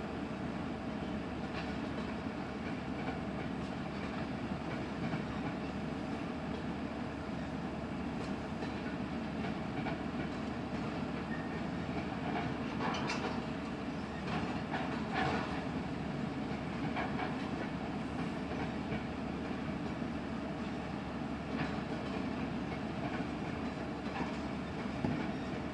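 Freight train cars rolling steadily past, wheels clacking over the rail joints, with a few brief sharper sounds about halfway through.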